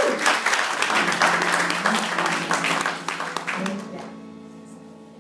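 A small congregation applauding, loud at first and dying away about four seconds in. Soft instrumental music with held notes plays underneath.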